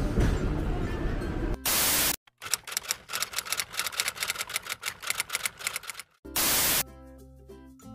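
Rumbling tram-ride noise, cut off by a short burst of TV-style static. Then a typewriter sound effect clicks rapidly for about four seconds, another static burst follows, and music begins near the end.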